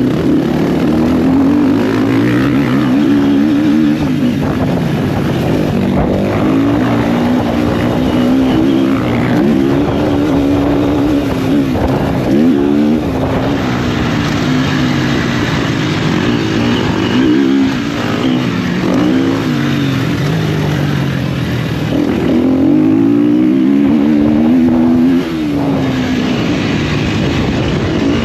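Motocross bike engine revving hard as it is ridden, its pitch climbing and dropping again and again with the throttle.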